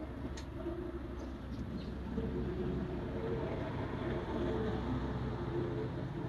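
Road traffic: a steady low engine rumble that grows louder about two seconds in, as a vehicle passes.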